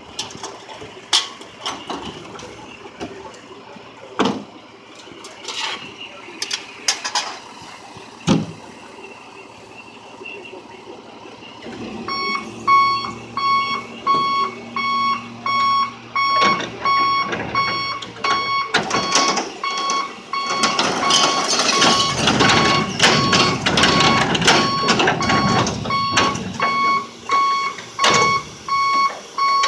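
Cans and bottles clatter into the side hopper of a Labrie Top Select recycling truck. About twelve seconds in, the truck's warning beeper starts a steady repeating beep over a low hum, and the raised hopper dumps its load into the body with a long loud clattering rush.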